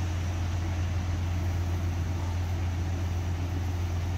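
An engine running steadily, a constant low drone with no change in speed.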